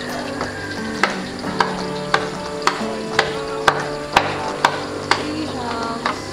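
Background music: held tones that change pitch every second or so, with a light clicking beat about twice a second.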